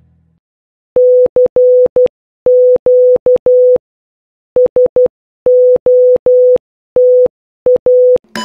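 A single steady Morse code tone, keyed in short and long beeps that spell out "CQ SOTA", the call for contacts used in Summits on the Air amateur-radio activations.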